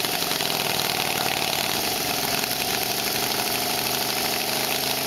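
The 750cc radial engine of an early Verdel motorcycle, built from an aircraft engine, idling with a rapid, even firing beat. Its speed dips slightly and recovers partway through.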